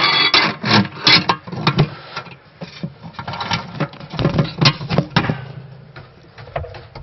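Handling noise on the phone's own microphone: irregular knocks, rubbing and rattles as the phone is fastened to the metal chain and hook of a well windlass cable.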